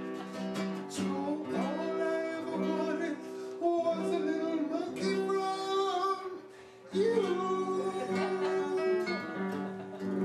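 A song: acoustic guitar strummed and plucked under a man singing.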